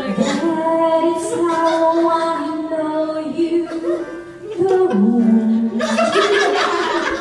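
Music with a voice singing long held notes, dropping to a lower note about five seconds in.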